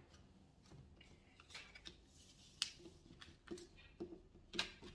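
Tarot cards being picked up off a table and stacked into a pile: about half a dozen faint, short clicks and taps of card against card and tabletop, the loudest near the end.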